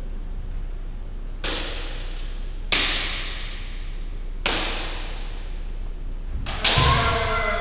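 Bamboo kendo shinai strikes: four sharp cracks about 1.3 to 1.8 seconds apart, each echoing in a bare hall. The last comes with a heavy stamp of a bare foot on the wooden floor, and a long shout (kiai) starts right after it near the end.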